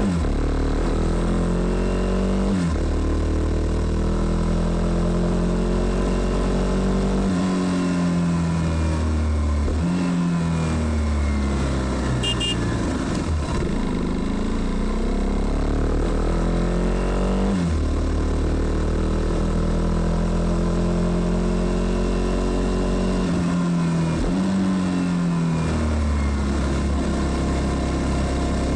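KTM Duke 390's single-cylinder engine, flashed ECU, riding hard: it repeatedly revs up in rising pitch and drops suddenly at each gear change, with stretches of easing off in between.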